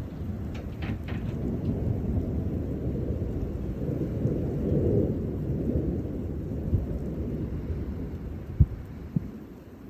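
Rolling thunder rumbling long and low, building to a peak about halfway through and dying away, over steady rain. Two short sharp knocks near the end.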